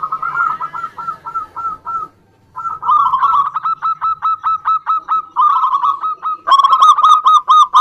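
Zebra dove (perkutut) calling: fast runs of short, clipped cooing notes, several a second, broken by a brief pause about two seconds in and growing louder near the end.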